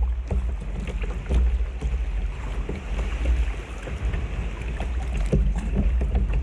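Water splashing and lapping around a kayak as it is paddled, with many small irregular splashes and a steady low rumble of wind on the microphone.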